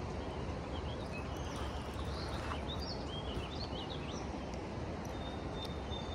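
Steady rush of river rapids, with small birds chirping several times over it.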